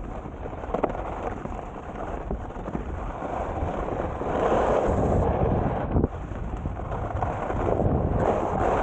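Wind rushing over an action camera's microphone during a fast ski bike descent, with a rumble and a hiss of skis on snow that swells about halfway through and again near the end.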